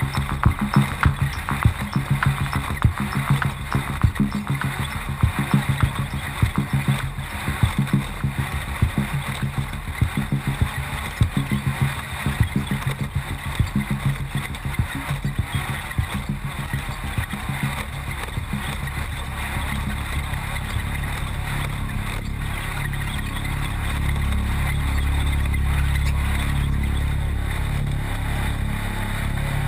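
Off-road race vehicle's engine running hard over rough desert ground, with frequent knocks and rattles. About two-thirds of the way in the knocking dies down and the sound becomes a steadier, deeper drone.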